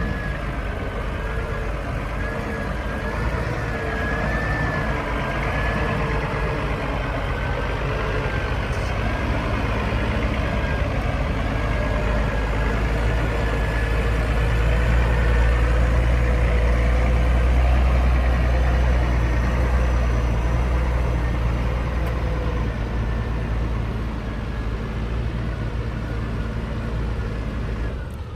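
Heavy diesel engine of earthmoving machinery running under load: a steady low rumble with a wavering whine over it, swelling louder past the middle and easing off toward the end.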